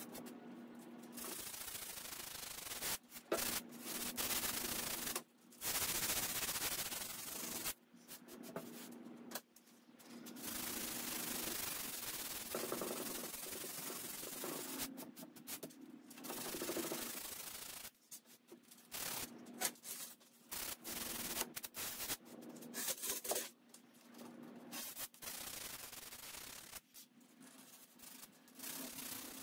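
Hand sanding of the bare wood top of a 1941 Lane cedar chest with a sanding pad: scratchy back-and-forth strokes in irregular runs with short pauses between, over a faint steady hum.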